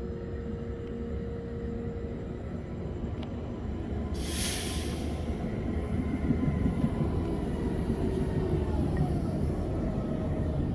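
New Flyer C40LFR natural-gas transit bus pulling in, its engine rumble growing louder as it approaches, with a short hiss of air about four seconds in. A whine falls in pitch as the bus slows.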